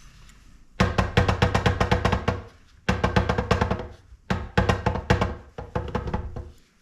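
Rapid metallic knocking and rattling, about ten knocks a second in three bursts, from the KitchenAid stand mixer's motor being wiggled back and forth in its housing. The motor is still held fast, and the transmission has to come off first.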